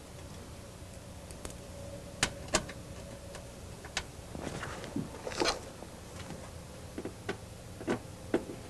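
Scattered small metal clicks and taps as a screw and wire ring terminal are handled and fitted against a car's sheet-metal inner fender panel, then driven with a screwdriver, over a faint steady hum.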